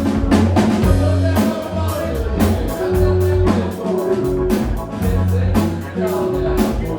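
Live rock band playing: electric guitar, bass, keyboards and a drum kit with regular drum strikes over a held bass line.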